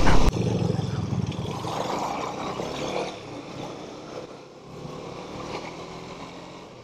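Motorcycle riding noise from a helmet or handlebar camera on a KTM Duke: wind rush over the engine running. A louder rush cuts off just after the start, and the rest fades slowly down.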